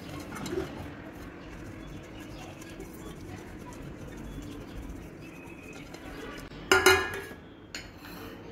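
Silicone pastry brush rubbing oil around the inside of an aluminium cake tin, a soft steady scrubbing. About seven seconds in comes a loud metallic clank, then a smaller knock.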